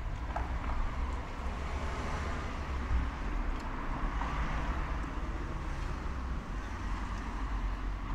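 Street traffic: a car passing on the road, its tyre and engine noise swelling to a peak about halfway through and then easing off, over a steady low rumble.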